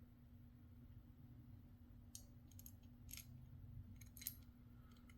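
Faint, light clicks and ticks of small RC transmission gears and parts being handled on the bench, scattered through the second half, over a low steady hum.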